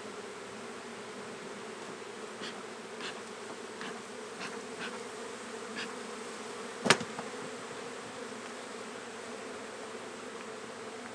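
A packed colony of honey bees from a newly hived swarm humming steadily. A single sharp knock about seven seconds in, with a few faint ticks here and there.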